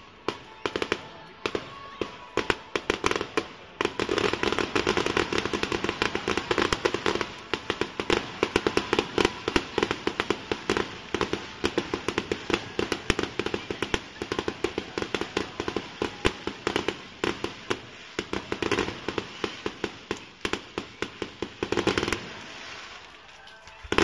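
Fireworks display: a rapid barrage of firework shells bursting many times a second, the bangs and pops overlapping into a continuous volley. The volley grows denser about four seconds in and breaks off about two seconds before the end.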